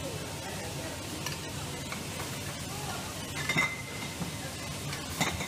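Sparkling-wine disgorging and corking machinery running with a steady hiss, with a few sharp clinks of glass bottles and metal crown caps. The loudest clinks come around the middle and near the end.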